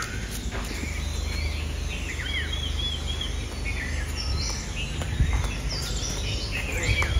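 Wild birds calling, with scattered short chirps and a quick run of about five repeated notes a few seconds in, over a low steady rumble.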